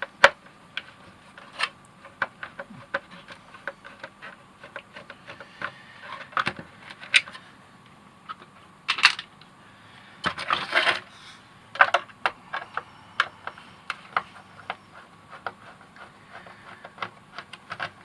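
Irregular clicks and knocks of hard plastic parts and small tools being handled as a robot vacuum's suction unit is taken apart, with two short scraping bursts around the middle.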